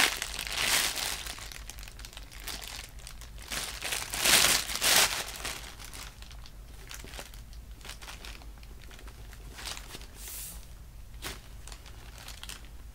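Thin clear plastic bag crinkling as a squishy toy is pulled out of it, in loud bursts over the first five seconds or so, then only a few faint crinkles.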